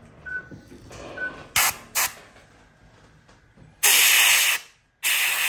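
Dental air-water spray syringe hissing in spurts: two short puffs about a second and a half in, then two longer sprays of about a second each near the end.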